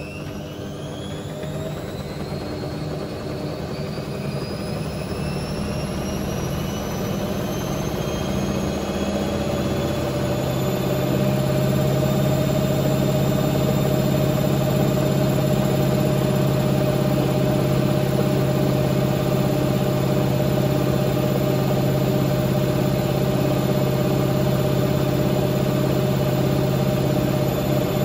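Hotpoint WMA64 washing machine's newly fitted drum motor whining as it speeds up the drum. The whine rises in pitch and grows louder, then holds steady at speed from about ten seconds in, over a low hum.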